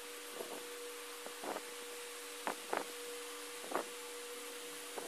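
A pencil tapping and scratching on a notebook page, about six short soft knocks, over a steady electrical hum and hiss.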